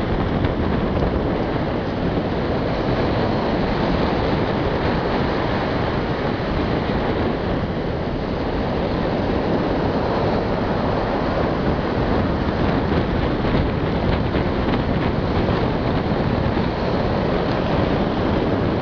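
Shallow surf washing up and over a sandy beach, with wind buffeting the microphone: a steady, even rushing noise.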